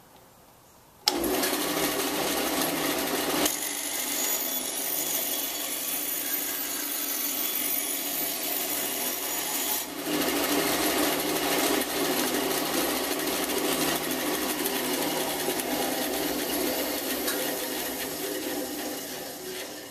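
A 1989 Delta bandsaw, fitted with new urethane tires and a quarter-inch Olson All-Pro PGT blade, switches on about a second in and runs while cutting through a wooden board, easing off near the end. The blade rubs against the plastic blade guard, adding a scraping noise.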